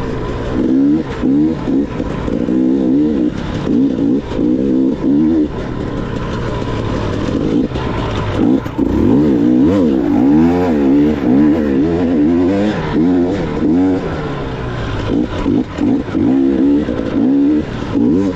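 Dirt bike engine being ridden hard, revving up and dropping back again and again as the rider works the throttle and gears, the pitch rising and falling about once a second.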